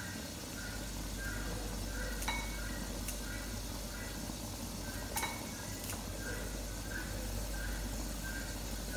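Pot of Malabar spinach and minced pork soup simmering on the stove: a steady low rumble with a few sharp clicks, the loudest about five seconds in. A faint high chirp repeats every half second or so throughout.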